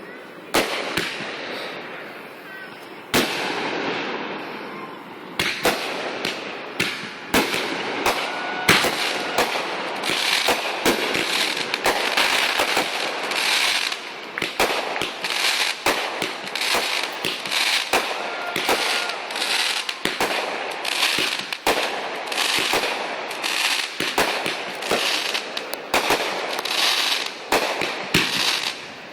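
Consumer fireworks going off: scattered sharp bangs at first, then from about five seconds in a dense, continuous run of pops and crackles over a steady hiss.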